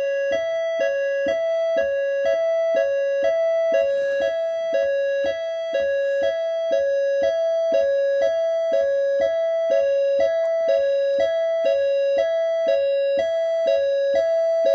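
Electronic keyboard with a piano-like voice playing an imitation of a British ambulance's two-tone siren: two notes a short step apart alternating hi-lo at a steady, even pace, cutting off abruptly at the end.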